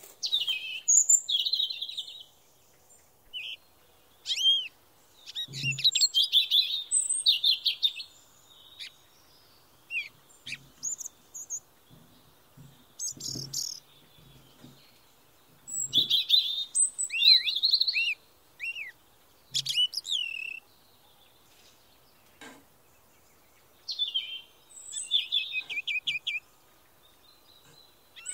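Songbirds singing in repeated phrases of chirps, short whistles and quick trills, with pauses between the phrases. A few soft low knocks come in the middle.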